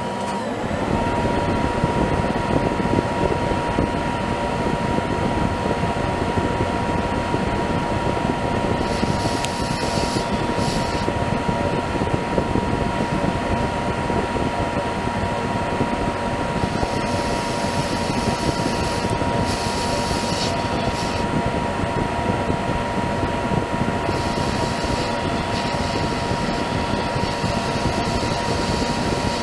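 Monarch 10EE lathe spinning up about a second in, then running steadily with a constant high whine from its drive. Several stretches of hiss come and go as the tool takes light chamfering passes, fed on the compound at 45 degrees.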